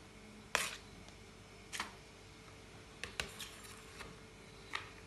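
Metal spoon knocking and scraping against a plastic yogurt tub and bowl while scooping out thick yogurt: a handful of sharp, irregular clicks, the first about half a second in the loudest.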